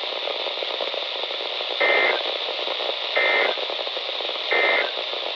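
Three short Emergency Alert System SAME data bursts, each under half a second and about 1.3 s apart; their shortness fits the end-of-message (NNNN) code. They play over a steady radio hiss.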